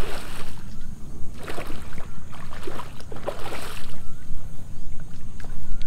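A hooked fish splashing at the surface close to the bank while it is played on rod and line, in three or four short bursts over a steady low wind rumble. Faint bird chirps come in near the end.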